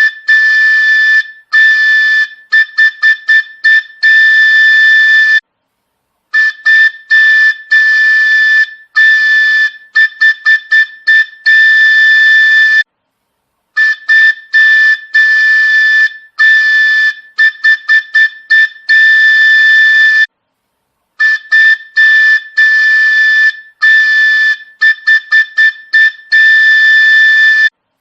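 A shrill single-pitched whistle, labelled a train horn, sounding in quick toots and longer blasts of a second or more. The same pattern of about six and a half seconds repeats four times with a short break between runs, a looped effect.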